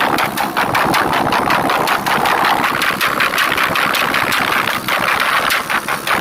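Motorcycle engine running steadily with a fast, even pulsing.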